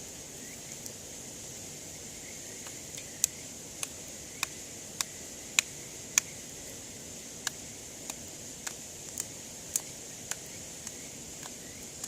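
Campfire wood crackling, with sharp pops at irregular intervals, over a steady high-pitched chirring of night insects.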